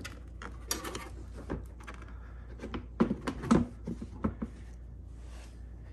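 Hard plastic side panel of a Predator 3500 generator being handled and fitted back onto the frame: scattered knocks and clicks with some rustling, busiest a little under a second in and again around three to four seconds in.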